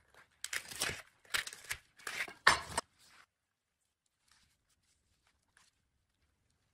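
Plastic cling film being torn and pulled off a foam tray: four loud rips within the first three seconds, then a few faint rustles.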